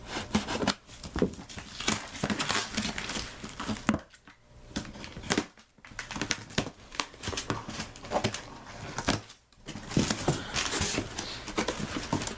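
Cardboard shipping box being opened by hand: packing tape tearing, flaps and paper packing crinkling, in irregular bursts with a couple of short pauses.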